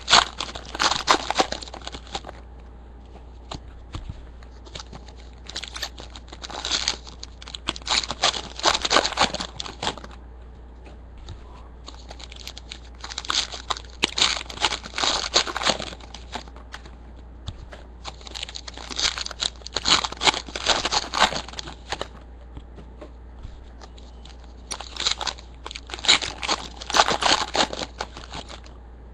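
Sealed trading-card pack wrappers being torn open and crinkled by hand, five rounds of rustling and tearing, each lasting a few seconds, with short pauses between.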